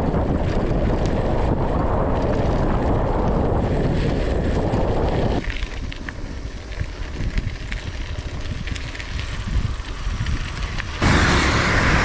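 Wind buffeting an action camera's microphone while riding a mountain bike on a dirt road, a steady rumbling noise. It drops abruptly to a quieter hiss about halfway through and comes back loud suddenly near the end.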